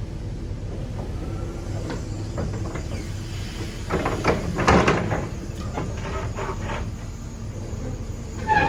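Excavator's diesel engine running with a steady low rumble, with a cluster of metallic clanks and knocks from the machine about four to five seconds in and a few lighter ones around it.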